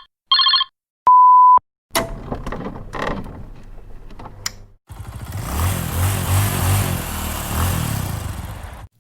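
A run of stock sound effects. First a short electronic phone ring burst and a single steady half-second beep. Then a cannon shot with crackling decay, and finally a long rumbling boom lasting about four seconds.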